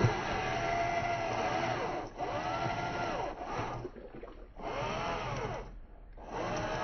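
WPL E1 RC tracked vehicle's electric motor and gear drivetrain whining as it crawls over rocks, the pitch rising and falling with each push of the throttle. It drops out briefly about four and six seconds in.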